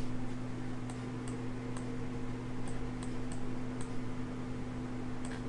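Computer mouse clicking irregularly, about nine light clicks, over a steady electrical hum.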